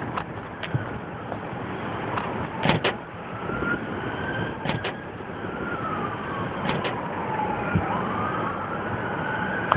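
A siren wailing, its pitch slowly rising and falling, with more than one wail overlapping; it comes in a few seconds in. Pairs of sharp clicks sound every couple of seconds over a steady rushing noise.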